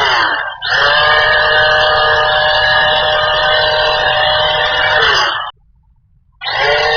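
Electric motor of a hand-held power tool, an angle grinder converted for drilling or routing, running with a steady whine after a short spin-up. It stops abruptly about five and a half seconds in and starts again about a second later.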